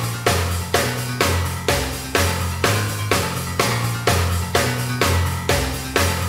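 Background music with a steady drum beat, about two beats a second, over a bass line.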